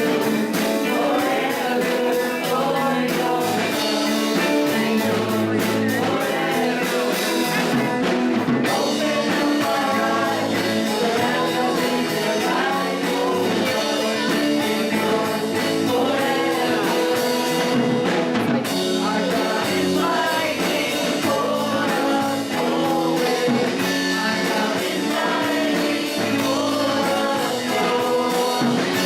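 A song with singing over a rock band of guitar and drum kit.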